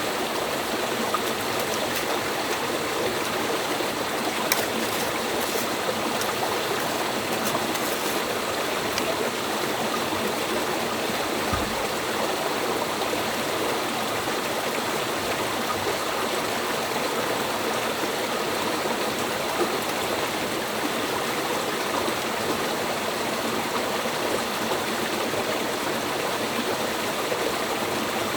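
Stream water flowing, a steady even rush, with a few faint clicks in the first several seconds.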